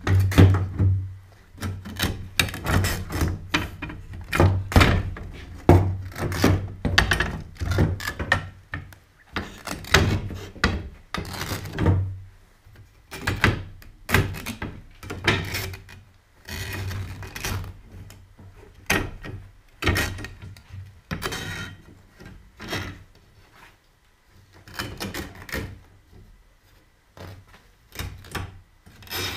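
Upholstery fabric being pried and pulled off a sofa's wooden slat frame with a hand tool: a long run of irregular knocks and clicks with short rustling scrapes in between.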